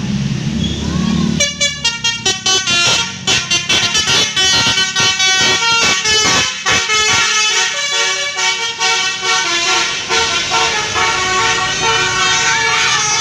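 A bus's musical 'telolet' horn of the basuri type playing a fast tune of many short notes, starting about a second and a half in. A low rumble comes before it.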